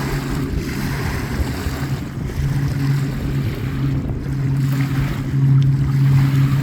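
Propeller engine of a small water-scooping plane running on the water, a steady low drone that grows louder toward the end.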